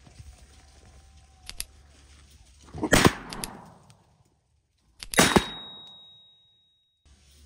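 Two gunshots from a boar hunter's gun, about two seconds apart, each a loud sharp crack that rings out and fades, the second with the longer tail. A fainter sharp crack comes before them.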